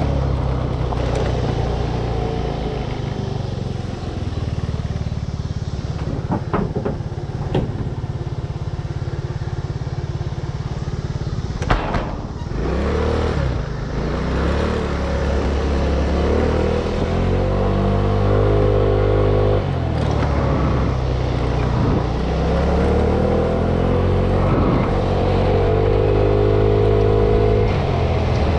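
Road vehicle's engine running while driving, its pitch climbing as it accelerates and dropping back several times, with a few brief knocks or rattles.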